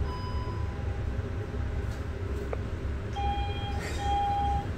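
Passenger lift running with a steady low hum as it travels up, a single click about halfway through, then two electronic beeps at one pitch near the end.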